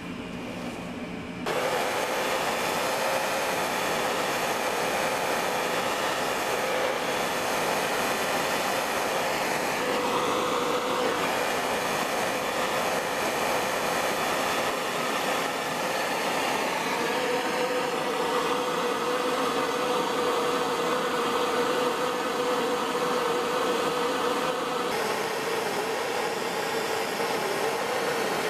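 Handheld gas torch burning steadily with a rushing hiss and a faint steady tone, starting about a second and a half in, as its blue flame heats the bent tang of a forged draw knife held in a vise.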